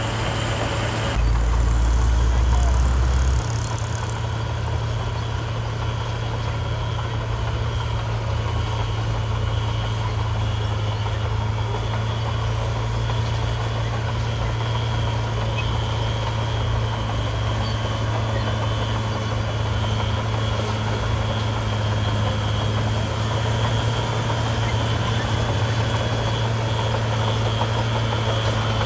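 Heavy construction machine's diesel engine running steadily with a deep, even hum, and a louder low rumble for about two seconds shortly after the start.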